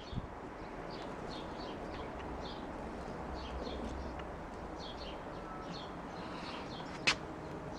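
Small birds chirping repeatedly over a steady low background hum, with one sharp click about seven seconds in.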